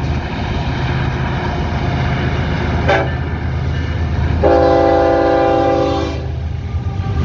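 Diesel locomotive air horn on a coal train: a short toot about three seconds in, then a longer chord blast of nearly two seconds, over a steady low rumble.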